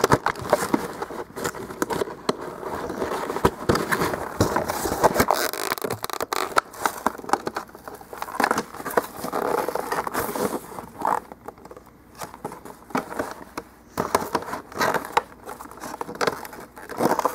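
Stiff product packaging being handled and worked open by hand, giving irregular clicks, crackles and scrapes.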